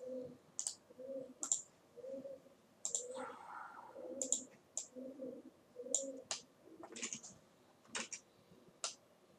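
Computer mouse clicks: about a dozen short, sharp clicks at irregular intervals while software is operated, with a faint low pulsing sound about once a second underneath.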